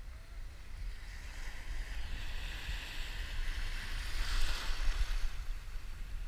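An ocean wave breaking and washing in close by in shallow surf: a rushing swell that builds, is loudest about four seconds in, then fades. Wind rumbles on the microphone underneath.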